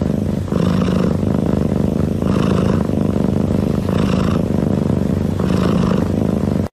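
Sleeping long-haired cat making a loud, rough, rumbling breath noise that runs on without a break, with a brighter rasp about every second and a half as it breathes.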